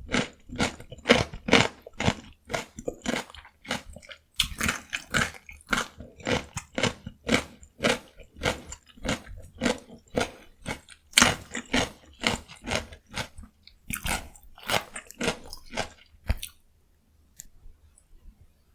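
Close-miked chewing of raw cucumber, a quick run of crisp, wet crunches about two to three a second, falling quiet about two seconds before the end.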